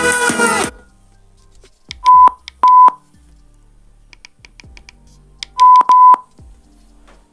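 Song playing through the Mivi Roam 2 Bluetooth speaker cuts off under a second in. Then the speaker gives short electronic beeps: two about two seconds in, a faint quick run in the middle, and two more about six seconds in.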